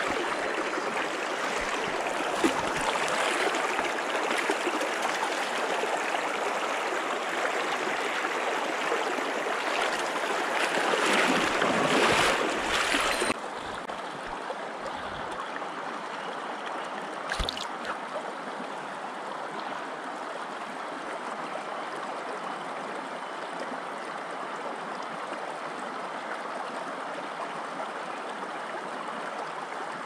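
Shallow mountain stream rushing and gurgling over stones close by, growing louder toward the middle. About 13 seconds in it drops suddenly to a quieter, steady rush, with a single short knock a few seconds later.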